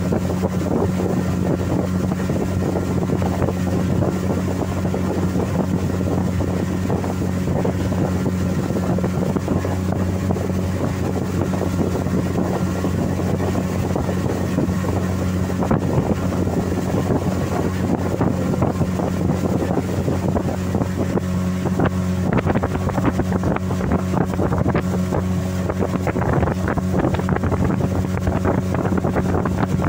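An open fibreglass boat's motor running at a constant speed, a steady low drone, with water rushing along the hull and wind on the microphone.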